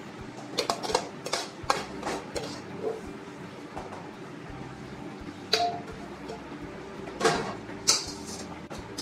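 A steel ladle clinking and scraping against a steel pan and a large steel platter as chicken gravy is spooned onto rice. Irregular metallic clinks, a few of them ringing briefly, come over a steady background hum.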